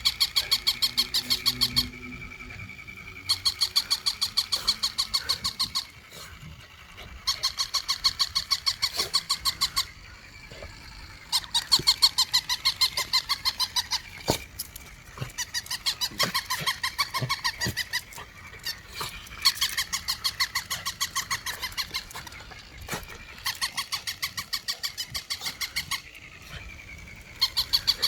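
Toy shiba inu sounding off in repeated bursts of rapid electronic pulses, each burst about two and a half seconds long, with short pauses between them.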